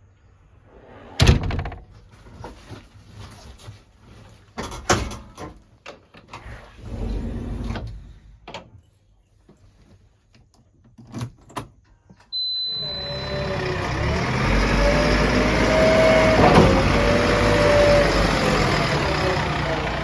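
Scattered metallic knocks and clunks, a loud one about a second in, then a heavy diesel machine engine coming in suddenly about twelve seconds in and running loud, its pitch rising and falling as it is worked.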